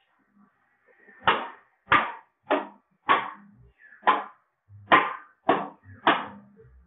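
Wooden mallet striking a chisel into a wood carving, about eight sharp blows at an uneven pace, roughly one every half second to second.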